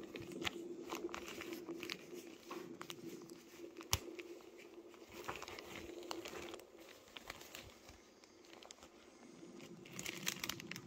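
Handling noise: the denim fabric of a gardener's apron rubbing and brushing close against the microphone, with scattered light clicks and one sharper tap about four seconds in. A faint steady hum underneath stops after about seven seconds.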